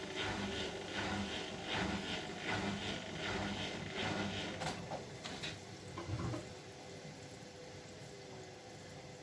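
Bosch Maxx WFL 248Y washing machine drum turning in the wash, with water and laundry sloshing about once every three-quarters of a second over the motor's hum. About six seconds in, the drum stops turning and a quieter, steady sound of water remains.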